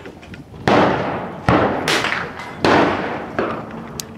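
Gunshots: five sharp reports at uneven spacing, each trailing off in an echo over about half a second.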